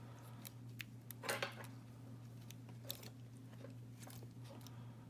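Lock pick working the pins of a Winkhaus half-euro cylinder: scattered small metallic clicks and ticks, with a short burst of scraping about a second in.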